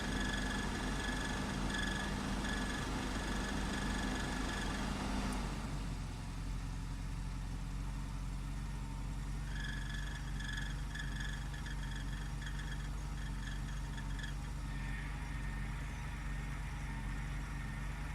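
Mazda RX-7 FD3S twin-turbo rotary engine idling, with a high-pitched buzz coming and going over it in stuttering spells, twice. The buzz is the abnormal noise from the bonnet striker: a dry bonnet catch, which greasing it cured. The engine note shifts about five seconds in.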